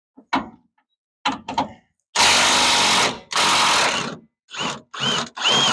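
A cordless impact wrench runs in bursts, backing out the fuel tank's mounting bolts under a truck. It gives a few short blips, then two long runs of about a second each, then three short bursts near the end, each ending with a brief rising-then-falling whine.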